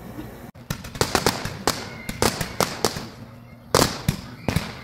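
Fireworks going off in a rapid, irregular string of sharp bangs, starting about half a second in, with the loudest bang just before four seconds in.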